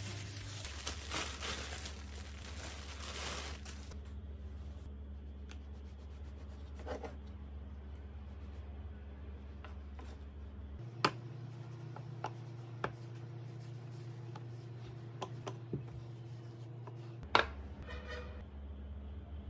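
Kitchen handling sounds: a plastic bag crinkling around a glass food container at the start, then a knife cutting the crusts off bread on a wooden cutting board with a few sharp taps of the blade. A louder knock comes near the end.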